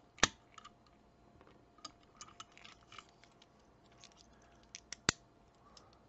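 Scattered small metallic clicks and taps of a lock and lockpicking tools being handled as the lock is taken out of a bench vise and the tension wrench and pick are set down. Two clicks stand out as sharp and loud, one just after the start and one about five seconds in.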